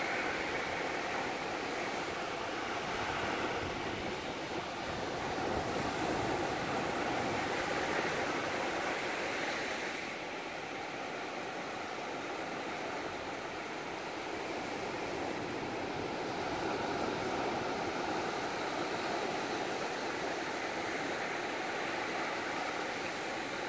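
Surf breaking and washing up a sandy beach: a steady rush of water that grows a little louder for a few seconds midway, then eases.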